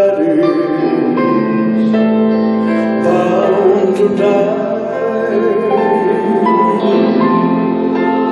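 Live music: a male vocalist singing a slow song with held, wavering notes, backed by electric guitar and a choir.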